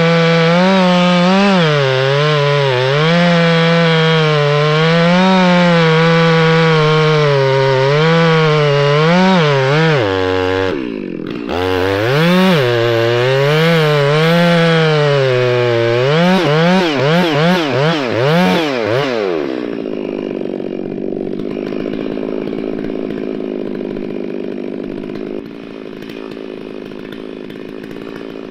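Two-stroke chainsaw with a long 36-inch bar cutting into a stump, its engine revs wavering up and down under load, with a brief bog about ten seconds in. About twenty seconds in the revs fall away and it settles to a quieter, steady idle.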